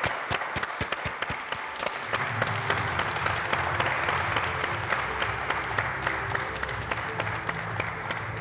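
Audience applauding, many hands clapping, as the winner is announced. Music with a low bass line comes in about two seconds in and plays under the applause.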